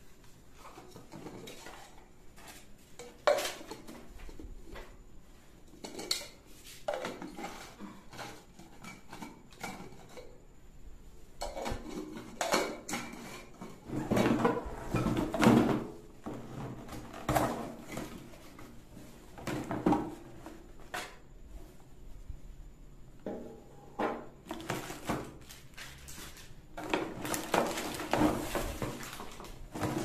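Plastic jars, lids and blade units of a bullet mixer grinder being handled and set down on a table, with a cardboard box moved: irregular clatter, knocks and clicks, busiest in the middle stretch.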